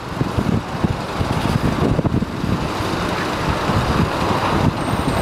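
Diesel engines of a skid-steer loader and a wheel loader running, a steady low engine noise without let-up.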